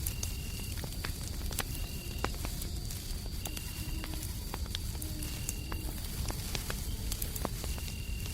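Fireplace crackling, with scattered sharp pops, over a steady low rumble of white noise. Crickets chirp in short, even pulses every second or two, with a steady high cricket trill underneath.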